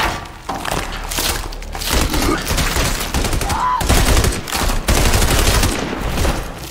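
Dense, rapid bursts of automatic gunfire over a heavy low rumble, as in a film battle scene.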